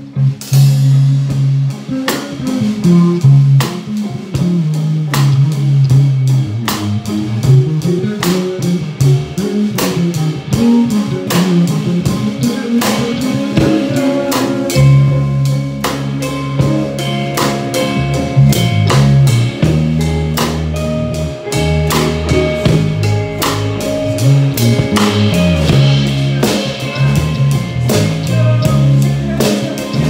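Drum kit and electric guitar playing a rock song live together: a steady beat of drum and cymbal hits over low guitar riffs, which grow heavier about halfway through.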